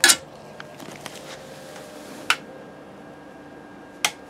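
Sharp plastic clicks from a screwdriver working a ribbon cable connector on a 3D printer's control board: one at the start, one about two seconds in and one near the end, with a few fainter ticks between, over a faint steady hum.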